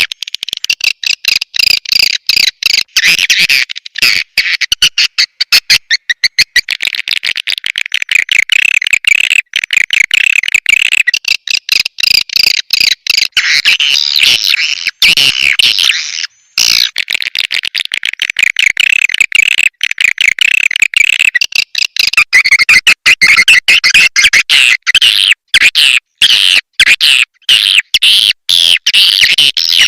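Swiftlet call recording: a dense, rapid stream of high chittering chirps from a swiftlet colony, played as a lure to attract swiftlets to a nesting house. It breaks off briefly about 16 seconds in, then carries on.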